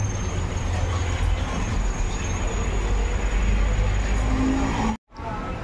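Steady low rumble and hiss of background noise, with a sudden brief dropout about five seconds in.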